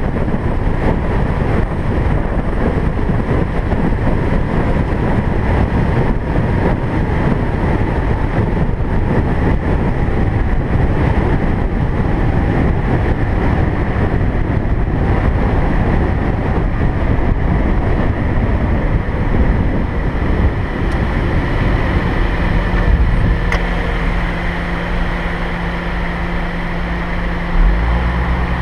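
A car on the move: steady, heavy road and wind rush. Over the last several seconds the rush eases a little and a steady engine hum comes through.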